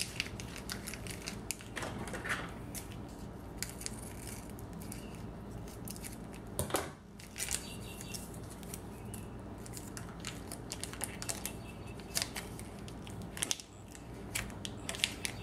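Plastic wrapping crinkling and tearing in short irregular crackles as a block of modelling clay is unwrapped by hand, over a steady low hum.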